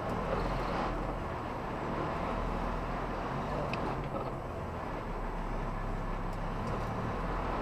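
Truck engine running low and steady, heard inside the cab while the truck creeps along in slow traffic, with faint road noise.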